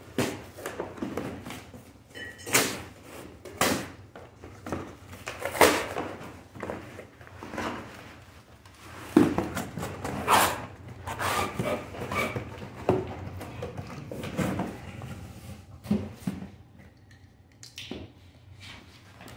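Cardboard shipping box being cut open with a box cutter and handled: irregular scraping, rustling and tearing of cardboard and packing tape, with knocks as the boxed player is pulled out.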